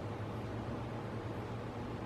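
A steady low engine hum under an even hiss.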